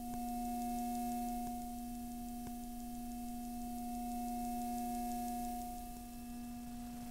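Electromagnetic emissions from an ASUS laptop's electronics, picked up by a bare loudspeaker-coil pickup held over the keyboard and amplified: a steady electronic hum made of a low tone and a clear higher tone, with fainter overtones above.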